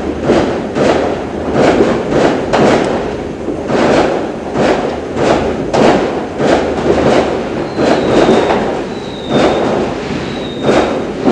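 New Year fireworks going off one after another, a steady run of bangs and crackles, with a few short high whistles in the second half.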